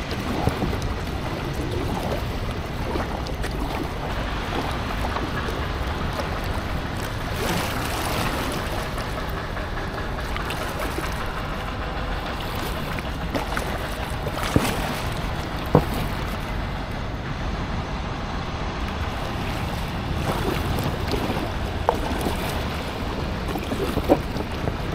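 Water sloshing around a small packraft on the river, with wind buffeting the microphone, and a few sharp clicks or knocks now and then.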